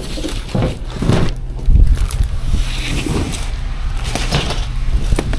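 Parcel being handled and carried: a few knocks and thumps, the loudest about two seconds in, over a steady low hum.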